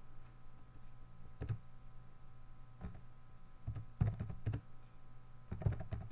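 Computer keyboard keystrokes: a few scattered, irregular taps, then short quick runs of keys as short entries are typed. A steady low hum runs underneath.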